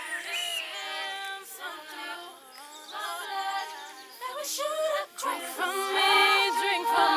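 Background music with a melody, sung or played, that swells near the end.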